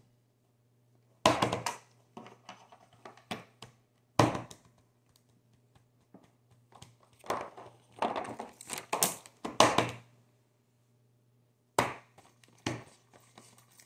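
Silicone and plastic fidget toys (pop-its and a chain fidget) being handled and set down on a paper pad on a table: scattered thunks and crinkling handling noises, busiest in the middle.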